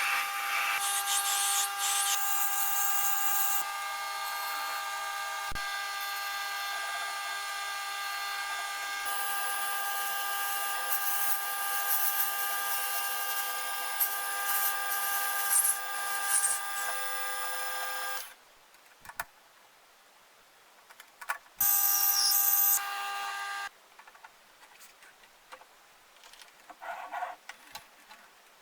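An electric power tool running steadily for about eighteen seconds, then stopping. It starts up again briefly for about two seconds near the end.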